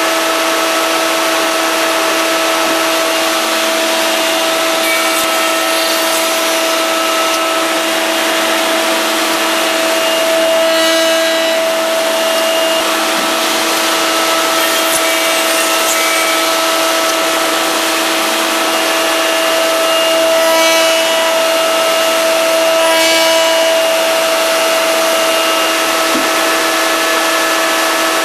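High-frequency spindles of a CNC horizontal machining center running with a steady whine and hiss, with several short, sharper bursts as the carbide cutters machine the wood during tenon and haunch work.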